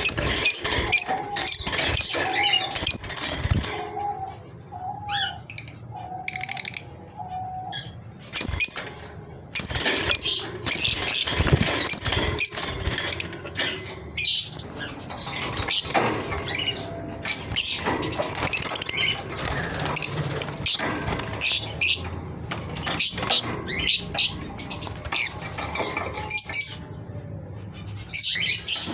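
Several small birds chirping rapidly and continuously in high-pitched notes, with wing flapping and clicks among them. For the first several seconds a repeated short lower note runs under the chirping.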